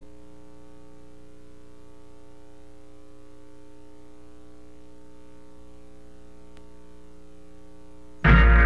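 Steady electrical mains hum with a buzzy stack of tones. Near the end, loud guitar-driven rock music starts abruptly.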